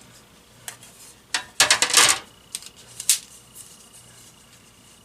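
Handling the ceiling fan's hard parts: scattered clicks and taps, with a quick clatter of several about two seconds in.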